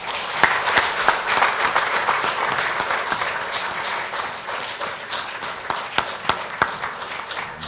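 Audience applause: a dense round of clapping that starts suddenly, is fullest in the first couple of seconds and slowly thins out toward the end.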